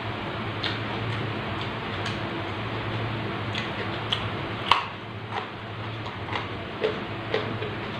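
Close-up crunching and clicking of raw vegetables being bitten and chewed: irregular crisp clicks, the loudest a little under five seconds in, over a steady low hum.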